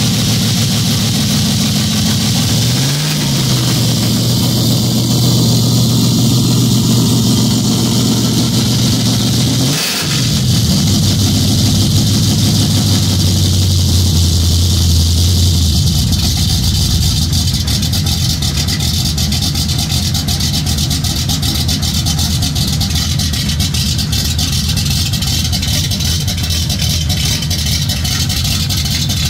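Cammed Ford 351 V8 running through a mocked-up dual exhaust with an X-pipe and Cherry Bomb Extreme mufflers, without turndowns. It idles steadily, with a short blip of revs about three seconds in and a brief dip about ten seconds in.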